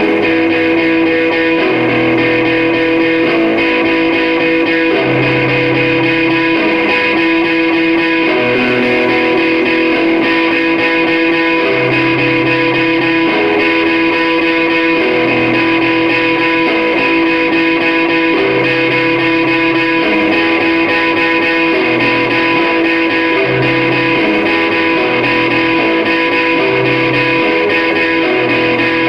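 Electra electric guitar being played: a steady held note rings throughout while lower notes change every second or so.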